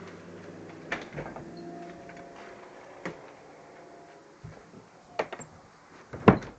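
A few separate sharp clicks and knocks, roughly one every second or two, the loudest near the end, over a faint steady hum that fades out after about two seconds.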